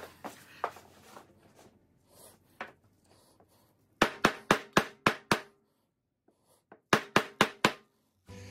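A hammer tapping a socket used as a seal driver, pressing a new shaft oil seal into the power steering pump housing: a quick run of six sharp taps, a pause, then four more. Light clinks of parts being handled before the taps.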